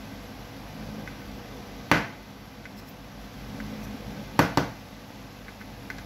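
Sharp taps and clicks from a soldering iron and solder spool handled against a circuit board during hand soldering: one click about two seconds in and a quick pair a little past four seconds, over a steady low hum.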